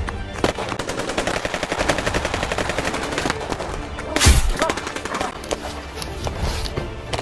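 Rapid automatic gunfire, a dense run of shots, with one heavy blast about four seconds in that is the loudest moment.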